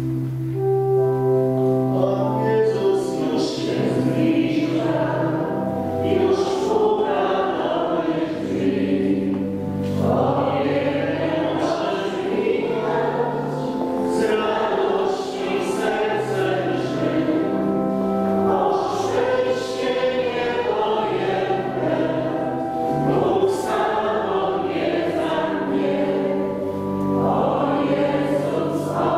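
Church pipe organ holding steady low chords, joined about two seconds in by many voices singing a slow hymn together with the organ accompanying.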